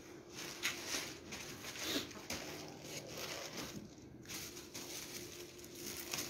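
Paper kites rustling and crinkling as they are picked up and handled, in several short soft bursts.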